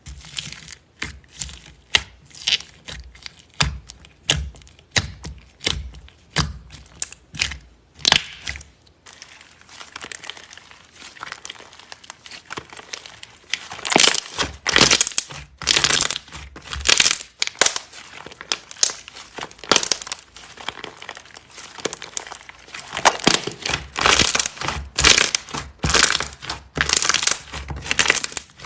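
Slime being squeezed and pressed by hand, giving a string of short clicks and pops. They come singly at first, then thick and fast from about halfway.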